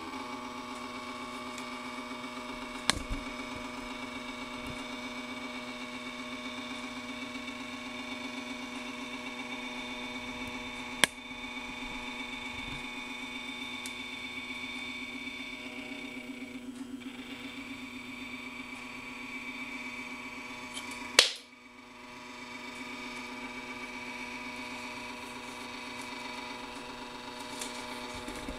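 A small stepper motor whines steadily as it drives a worm gear and brass worm wheel on a motorised camera head. Sharp clicks come twice, then one loud click about two thirds of the way through, followed by a brief break before the whine resumes.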